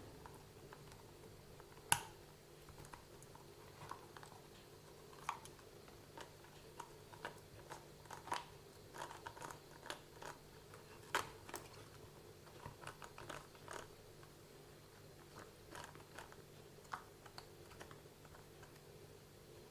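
Scattered small clicks and taps of hands handling and turning the drive shaft and gears of a partly stripped WLtoys 144001 RC car, irregular and light, over a faint steady hum.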